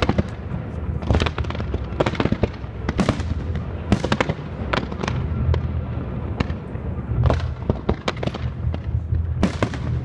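Fireworks display: a rapid, irregular series of bangs from bursting shells and comets, several a second, over a steady low rumble.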